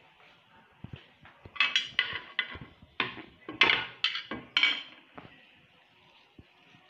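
Kitchenware clattering: a quick run of about eight sharp knocks and scrapes over a few seconds as a bowl of leaves and a chopping board are shifted and set down on a counter.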